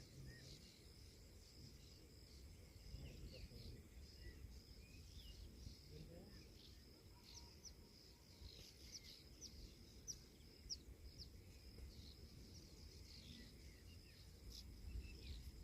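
Faint outdoor ambience: many short bird chirps, thickest in the middle stretch, over a steady high-pitched insect drone and a low rumble.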